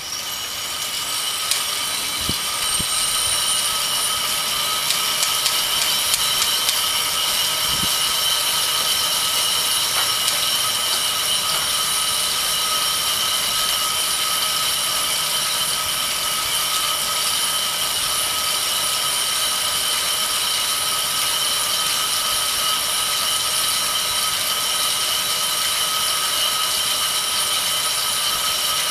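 Three-roller bicycle trainer spinning under a road bike being pedalled: a steady whine of several tones from the roller drums and tyres over a running hum. It builds over the first few seconds as the rider gets up to speed, then holds steady, with a few light clicks.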